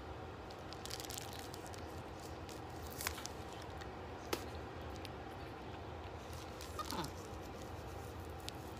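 Faint crinkling and clicks of a thin plastic bag being handled, over a quiet steady hiss, with two sharper clicks around three and four seconds in.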